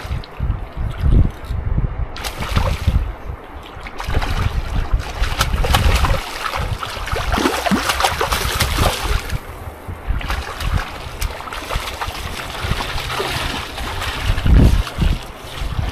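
River water splashing and trickling close to a microphone at the waterline, with wind gusting on the microphone; the splashing is busiest in the middle and a strong gust comes near the end.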